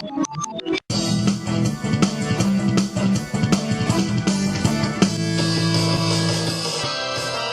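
Background music: a run of quick separate notes breaks off just under a second in, then fuller music with drums and a steady beat carries on.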